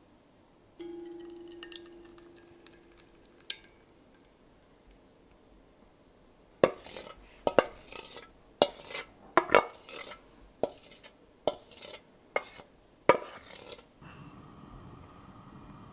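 Kitchen utensils knocking. A wooden spatula and a metal mesh sieve are struck about a dozen times, sharply, against the rim of a cast-iron pot to knock off thick jujube pulp. A metal bowl rings briefly about a second in, and near the end a soft steady hiss starts as sugar is poured into the pot.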